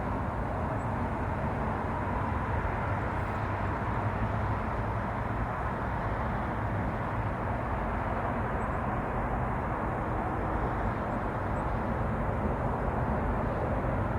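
Steady outdoor background rumble and hiss, even throughout, with no distinct events standing out.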